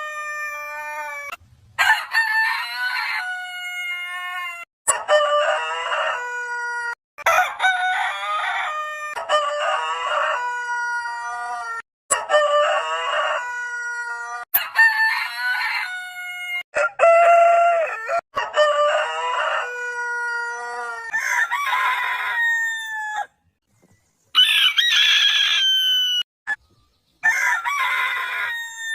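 Roosters crowing: about a dozen full crows back to back, each ending on a long drawn-out falling note, spliced together with abrupt cuts and short silences between them.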